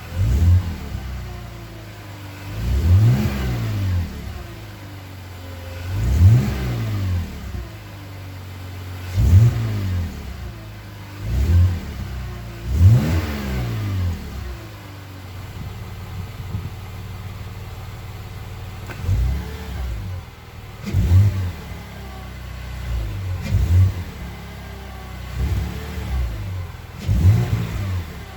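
BMW E46 320Ci's M54B22 straight-six, fitted with a cold air intake, idling and being free-revved. Four longer revs rise and fall about every three seconds, then a run of shorter, quicker blips follows in the second half.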